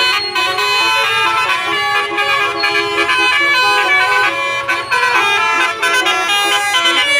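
Indonesian bus 'telolet' multi-tone air horn playing a melody: several horn trumpets sound together and step from note to note, loud and without a break.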